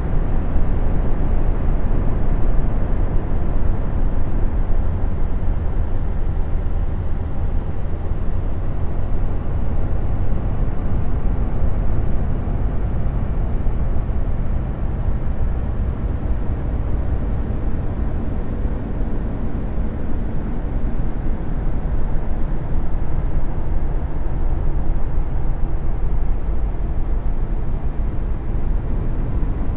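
Steady, deep rumbling noise with a faint hum in it, unchanging throughout: an ambient space-sound drone presented as the sound of Jupiter's moon Callisto.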